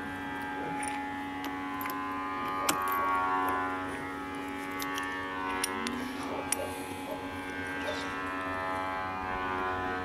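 Background music of sustained, slowly gliding droning tones, with a few sharp clicks, the loudest about three seconds in.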